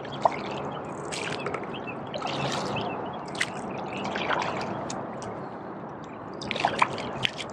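Double-bladed kayak paddle strokes in the water: the blades dip and pull, with splashing and water dripping off the blades between strokes.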